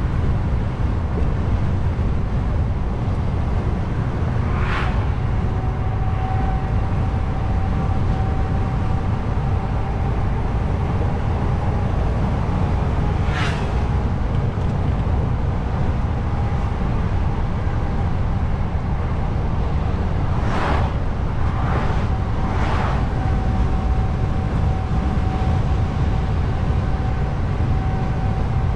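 Truck on the move: steady engine, tyre and wind noise with a faint steady whine that comes and goes. Brief sharp noises cut through about five seconds in, around thirteen seconds, and three times in quick succession a little after twenty seconds.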